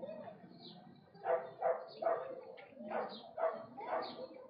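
A quick run of short, repeated animal calls starting about a second in, about two a second.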